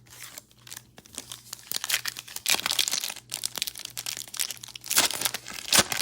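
Crinkling and tearing of a plastic trading-card pack wrapper, in irregular crackly bursts that grow louder a couple of seconds in and peak near the end.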